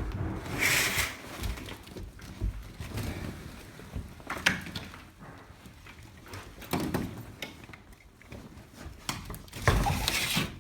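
A few separate clunks, knocks and scrapes of a door being worked open.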